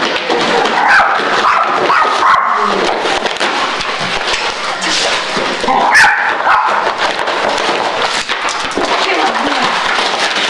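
A dog tearing and shaking cardboard boxes, the cardboard crackling and ripping throughout, with the dog's own voice heard now and then and a sharp snap about six seconds in.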